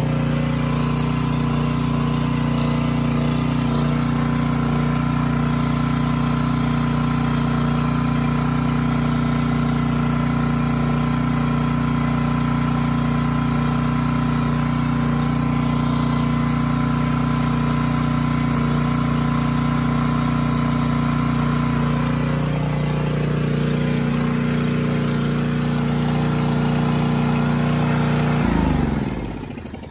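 Homelite portable generator's small single-cylinder engine running steadily at its governed speed of about 3600 rpm, which gives a 60 Hz output. Near the end its pitch falls and it winds down to a stop.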